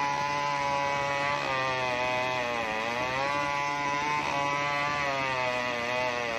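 New West 070 two-stroke chainsaw with a 36-inch bar running at full throttle while ripping a coconut log lengthwise. Its pitch sags under load a few times and picks back up.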